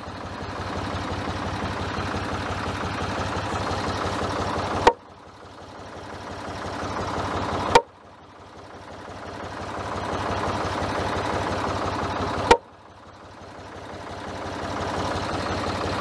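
Tractor engine idling steadily, with three sharp knocks of a mallet on a timber beam, about 3 and 5 seconds apart, light taps driving a notched beam down to seat it on the beam below.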